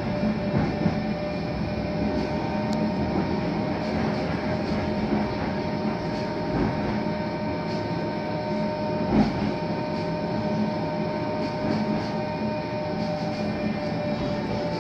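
Tram running along street track, heard from inside the car: a steady rolling rumble with a motor whine, and a couple of thumps from the wheels and track, the loudest about nine seconds in.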